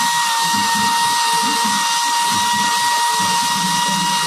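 Handheld electric angle grinder running at full speed, its motor giving a steady high whine at one unchanging pitch.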